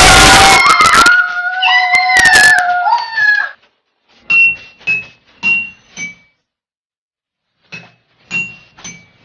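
Dog howling: several overlapping howls sliding up and down in pitch for about three and a half seconds, followed by a string of short, separate sounds.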